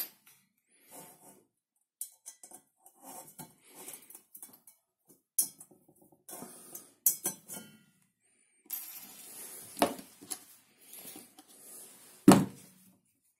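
An enamelled steel pot being handled on a table: scattered light clicks, taps and scrapes of the pot and small aluminium rivets, with one louder knock near the end.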